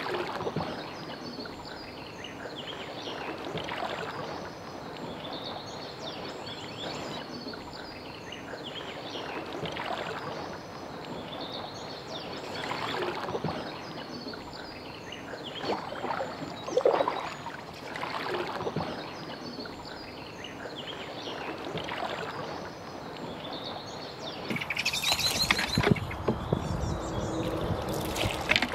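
Wooden canoe paddle dipping and pulling through calm river water in slow, irregular strokes, with birds calling. A louder rush of noise comes near the end.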